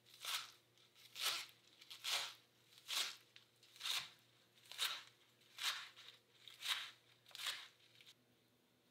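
Kitchen knife slicing through leaf lettuce on a cutting board: nine even cuts, about one a second.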